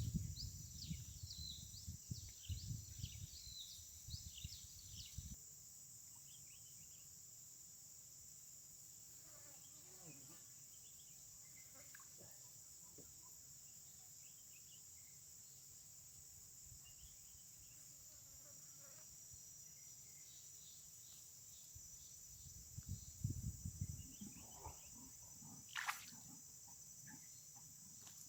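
Steady high-pitched insect chorus, with a run of short bird chirps over the first five seconds and a few low rustles and a single click near the end.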